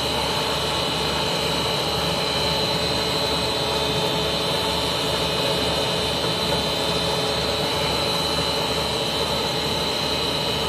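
Cast stretch film extrusion line running, producing film: a steady machine hum under a high, steady whine, with a low pulsing drone beneath.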